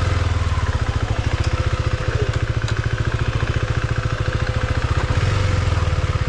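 Husqvarna Svartpilen 401's single-cylinder engine running at low revs with a steady, rapid beat, opening up slightly about five seconds in.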